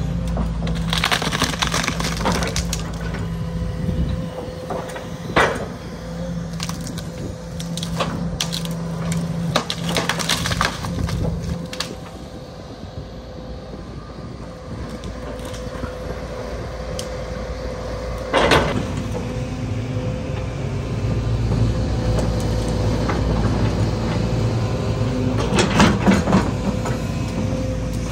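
Excavator engine and hydraulics running while an MDE Scorpion S1600 grab crushes and breaks demolition debris. Sharp cracks and crashes come in clusters, with one loud crack about two-thirds of the way through.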